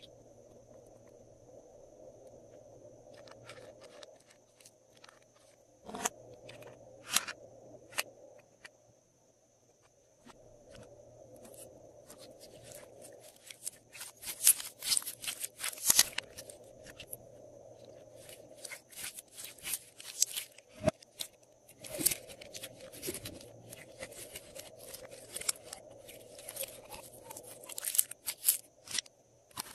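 Glossy slime being stretched, pressed and squished by hand, giving many short sticky crackles and clicks. Only a few scattered clicks come in the first third; after a brief lull the crackling turns dense and keeps going in runs.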